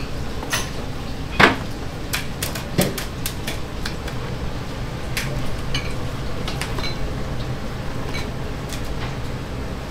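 Kitchen clatter of lacquered soba trays and ceramic bowls being handled and set down, with two louder knocks about one and a half and three seconds in, over a steady low hum.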